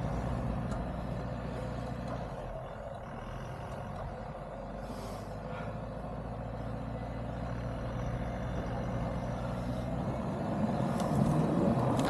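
4x4's engine running steadily at idle during a winch recovery, a low even drone that grows slightly louder near the end.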